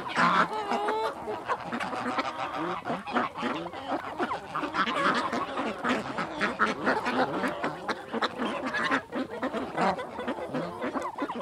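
A flock of farm geese and ducks calling over one another, dense honking and quacking without a break.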